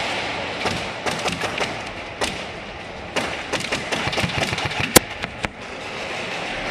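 Airsoft gunfire in an indoor arena: scattered sharp cracks, then a rapid run of shots and BB impacts on plywood walls, with the loudest single crack about five seconds in.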